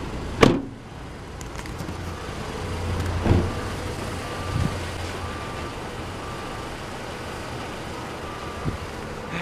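Car idling in a parking garage, with a car door shutting sharply about half a second in. From a few seconds in, a car's warning chime beeps steadily, a little more than once a second.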